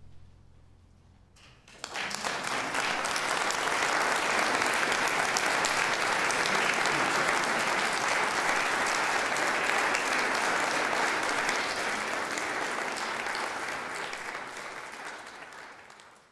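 The last low note of the music dies away, then an audience breaks into applause about two seconds in. The applause holds steady and fades out near the end.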